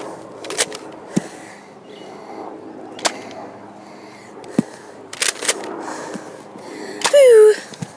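Nerf blasters firing: several sharp pops at irregular intervals. Near the end, a short, loud cry that falls in pitch.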